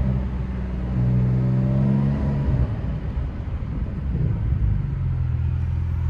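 Porsche 911 flat-six engine heard from inside the cabin while driving. Its note holds steady, breaks off about two and a half seconds in, and settles to a lower steady hum near the end.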